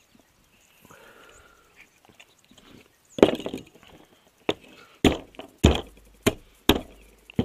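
Claw hammer striking apple snails on a plastic board, cracking their shells: about six sharp blows starting about three seconds in, the first the loudest.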